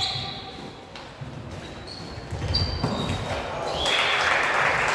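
Volleyball rally in an echoing sports hall: the ball struck a few times and sneakers squeaking on the gym floor. About three and a half seconds in, shouting and cheering rise and grow louder as the point ends.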